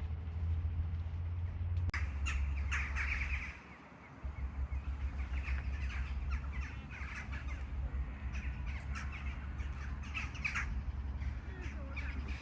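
Many birds calling, with short calls following one another in quick succession from about two seconds in, over a steady low rumble.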